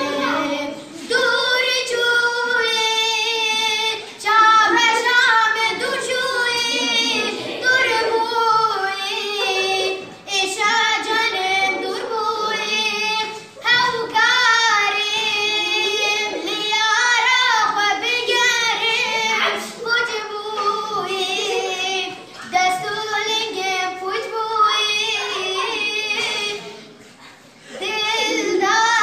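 A boy singing a Kurdish song solo, the melody wavering and ornamented in long phrases, with short pauses for breath between them.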